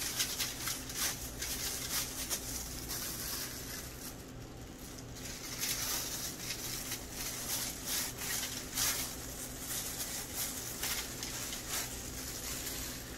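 Disposable plastic gloves and aluminium foil crinkling and rustling as gloved hands press and shape raw meatloaf mixture in a foil-lined pan: many small, irregular crackles.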